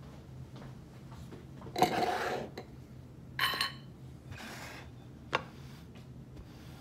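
Stainless steel skillet and wooden spoon being handled: a scrape about two seconds in, which is the loudest sound, then a ringing metal clink, a fainter knock and a sharp tap. A low steady hum runs underneath.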